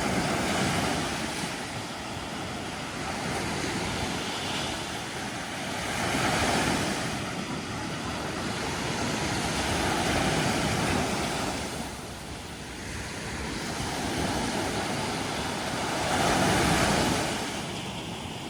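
Sea waves breaking and washing up a beach: a steady rush of surf that swells and falls back every few seconds.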